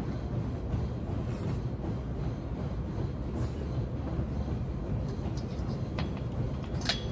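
Steady low rumbling background noise of a large gym hall, with two brief sharp clicks near the end.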